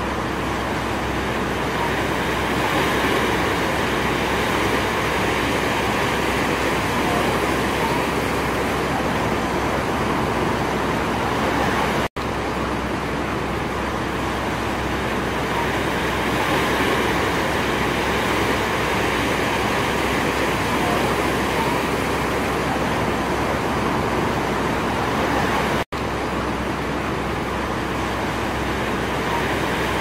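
Heavy surf breaking continuously on rocks, a steady rush of water that swells and eases slightly every few seconds. The sound cuts out for an instant twice, about twelve seconds in and near the end.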